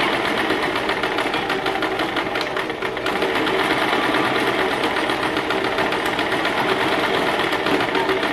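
Domestic electric sewing machine running continuously at a fast rapid stitch, zigzag-stitching through a band of woven cotton cord, with a brief dip a little under three seconds in.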